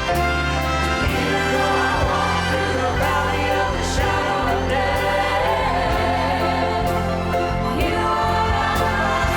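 Church choir singing with orchestra accompaniment, full and sustained.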